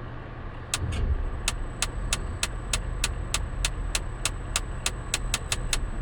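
Steady low hum of a tower crane while it lowers a load, with a run of sharp, regular clicks about three a second that come faster toward the end.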